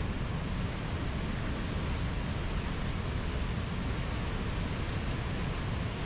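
Whitewater river rapids rushing over rocks: a steady, even rush of water with no breaks.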